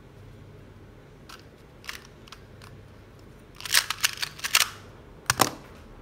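Keystrokes on a clear acrylic-cased mechanical keyboard with lubed KTT Mint switches and a foam-filled case: a few scattered clacks, then a quick flurry of loud presses about three and a half seconds in, and two heavier, deeper clacks near the end.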